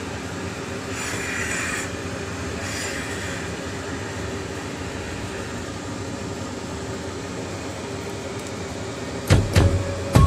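Steady mechanical hum and hiss, like a fan or appliance running, with a few sharp loud knocks near the end.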